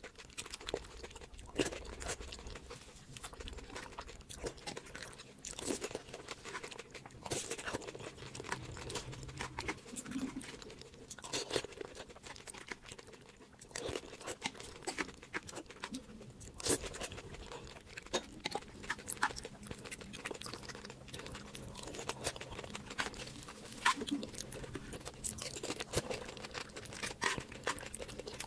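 Close-miked eating: crisp puri chaat topped with yogurt, chutney and sev being chewed and crunched with the mouth near the microphone, in irregular crackles and clicks, with the spoon scraping the plate now and then.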